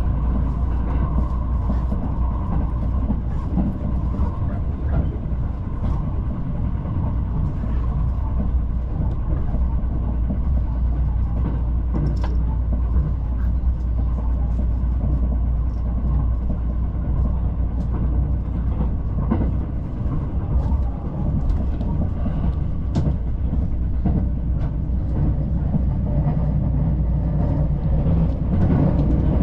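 Moving train heard from inside the carriage: a steady low rumble of wheels on rails, with a few faint clicks now and then.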